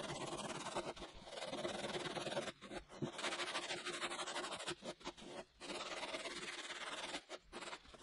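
Hand sanding the nose of a foam paddleboard with a sanding block: long scratchy strokes of abrasive on foam, broken by a few short pauses.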